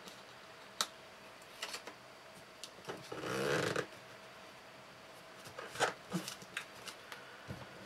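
A paper sticker label is peeled from its backing and pressed onto a cardboard box by hand: a few light taps and rubs, with a short rustling scrape a little after three seconds in.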